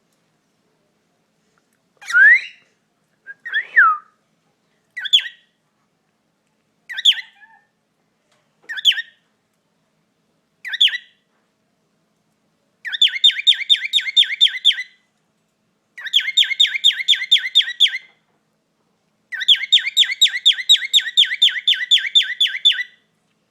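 Pet bird calling and singing. First come single short chirps about every two seconds, then about halfway through three runs of fast repeated notes, each lasting a couple of seconds. The owner takes this song as the sign that the bird is ready to be petted.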